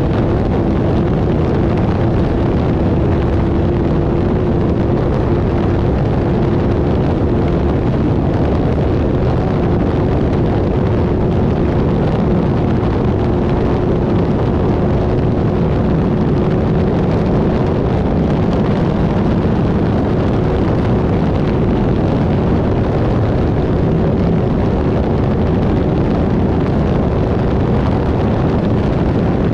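Off-road race vehicle's engine running hard at a steady pace: a continuous loud drone with one held engine note over heavy rumble.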